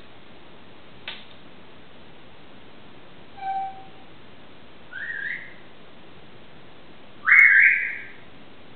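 Airedale terrier whining: a short steady whine, then two rising whines, the last one near the end the longest and loudest. A short click about a second in.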